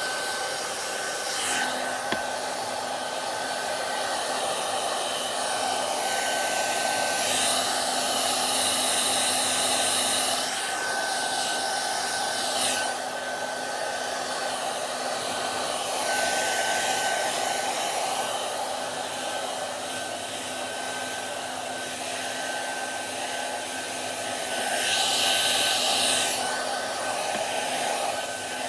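Hair dryer blowing steadily with a thin whistle over its rush of air. The hiss brightens and swells for a few seconds at a time, about three times.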